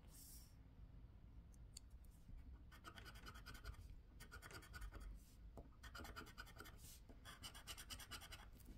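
Scratch-off lottery card being scraped with a hand scratcher tool, a faint rasping of rapid back-and-forth strokes in three runs, the first about three seconds in.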